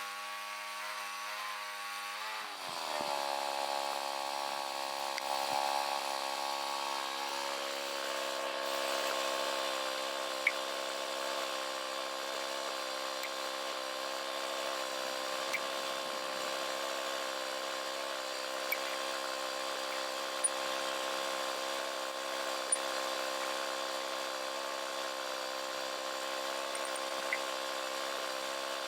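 Two-stroke chainsaw engine running steadily while milling a log into boards. About two and a half seconds in, its pitch drops as it takes the load of the cut, and it then runs on steadily under load, with a few sharp ticks scattered through.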